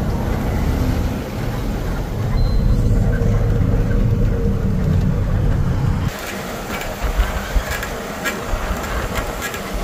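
A 14-wheeler truck running, with a steady low engine drone and road noise. About six seconds in, the drone drops away abruptly and a thinner noise with a string of clicks and a few sharp knocks takes over.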